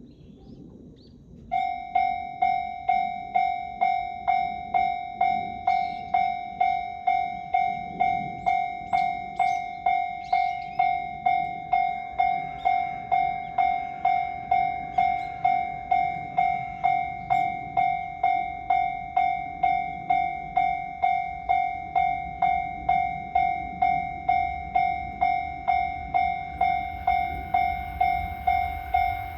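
Japanese level-crossing warning bell starting about a second and a half in, then ringing steadily with about two strikes a second: the crossing's warning that a train is approaching. A low rumble builds under it near the end.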